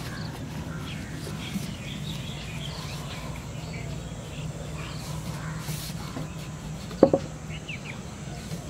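Birds calling and chirping over a steady low hum, with one sharp hollow knock and a brief ring about seven seconds in as the PVC pipe is handled on the grass.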